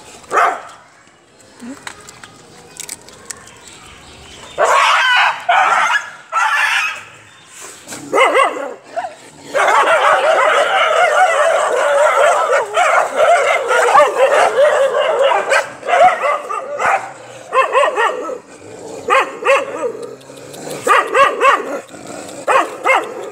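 Stray dogs barking, yipping and whining while begging for food. There are short bursts at first, then a long run of overlapping whines and yelps in the middle, and more short barks near the end.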